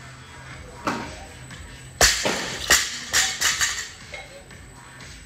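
Plate-loaded barbell with bumper plates set down hard on a rubber gym floor about two seconds in, followed by a string of rattling clanks as the bar and plates settle; a lighter knock comes about a second in.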